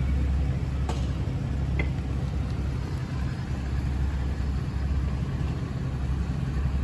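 Yamaha FJR1300P police motorcycle's inline-four engine idling steadily, heard close to its exhaust mufflers.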